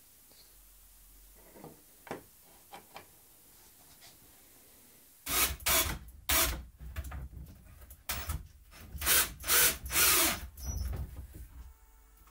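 Wooden boards being handled and worked: a few light knocks, then from about halfway a series of about eight loud, short scraping and knocking noises of wood rubbing on wood.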